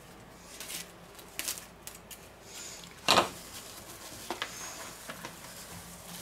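Cling film rustling and crinkling in short crackles as a slab of cookie dough is folded into it and pressed down on a countertop, with one louder knock about three seconds in.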